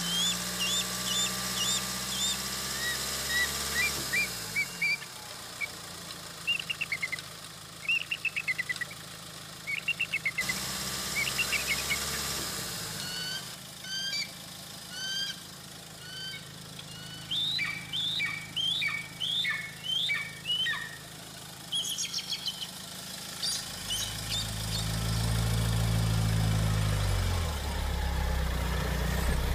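Small birds chirping over and over, with a vehicle engine running low underneath. The engine swells near the end and drops in pitch as it goes by.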